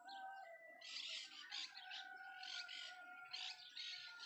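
Faint birdsong: birds chirping over and over, about two calls a second, with a steadier whistled note beneath.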